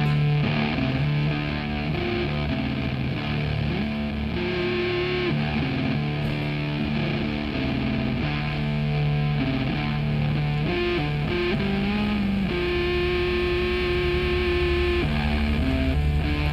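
Rock music with distorted electric guitar playing steadily.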